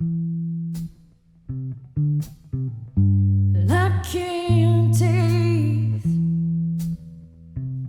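Live song: deep plucked string notes ring out and are cut off in turn, with a voice singing a short wavering phrase about halfway through.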